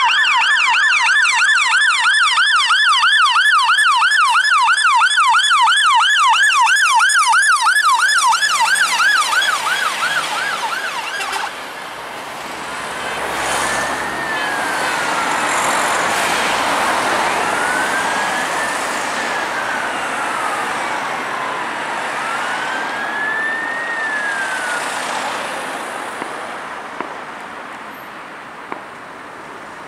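Fire and rescue vehicle sirens: a fast yelp sweeping up and down a few times a second cuts off about eleven seconds in, then a slower wail rises and falls over road traffic noise, fading as the vehicles move away.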